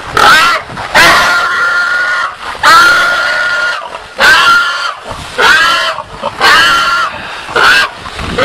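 Wild boar squealing in distress, caught by hunting dogs: a loud run of about eight squeals, some short and some held for a second or more, with short breaks between.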